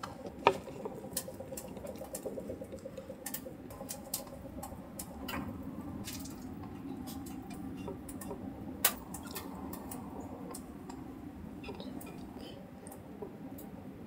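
Soft handling sounds of fingers arranging thin slices of roast beef in a wooden bowl, with scattered sharp clicks, the loudest about half a second and about nine seconds in, over a steady low background hum.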